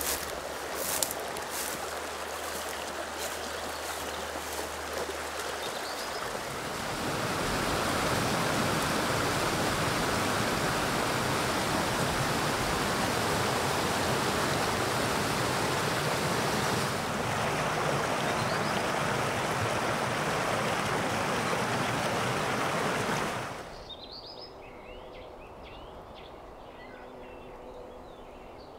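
Small mountain stream rushing and splashing over rocks, a steady water noise that grows louder from about seven seconds in. It drops off sharply near the end to a quieter background with a few faint chirps.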